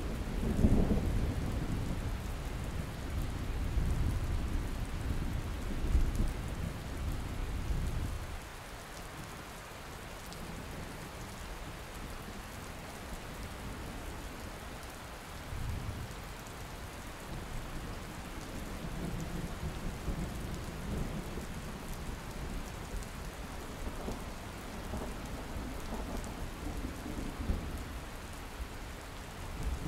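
Steady rain hissing, with thunder rolling heavily through the first eight seconds or so, then easing; fainter rumbles of thunder return about halfway through and again later.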